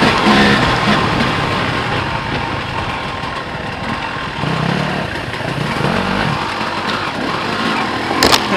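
Enduro dirt bike engine running under load on a rough trail, loudest at the start and easing off over the first few seconds, with a lower swell midway. A sharp knock near the end.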